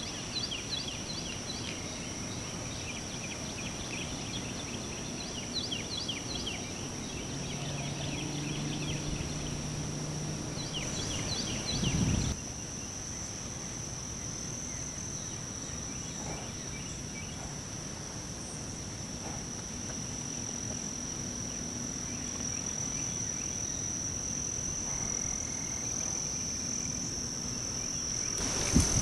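Marsh ambience: a steady high-pitched insect buzz, with bursts of rapid bird chirps in the first eleven seconds and a single thump about twelve seconds in.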